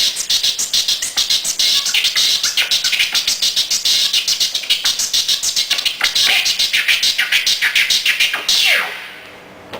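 Turntable scratching: a fast run of short, sharp scratch strokes, several a second, with a swept scratch near the end, stopping abruptly about nine seconds in.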